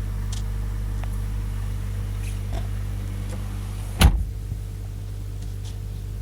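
Subaru Outback 2.5-litre flat-four engine idling steadily after a head gasket job, with a few light ticks and one sharp thump about four seconds in.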